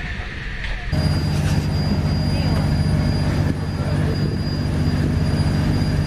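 Dive boat's engine running with a steady low drone, heard from on deck. It comes in abruptly about a second in, replacing a quieter noise.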